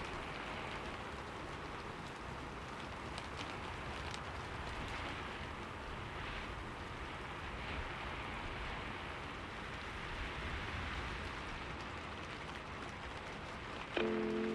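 Fire crackling: a steady soft hiss with scattered faint pops, over a low rumble. Sustained piano-like notes come in just before the end.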